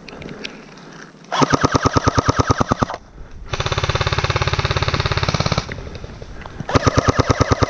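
Airsoft rifles firing full-auto in three long bursts of rapid, evenly spaced shots, the first starting about a second and a half in. The middle burst sounds different, smoother and heavier.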